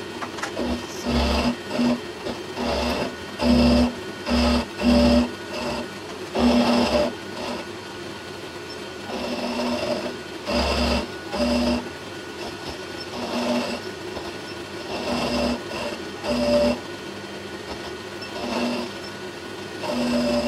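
Vertical milling machine cutting a V slot in a metal plate with a 12 mm end mill, played back at four times speed: a fast mechanical chatter over the machine's hum, with short loud pulses of cutting tone that come and go irregularly.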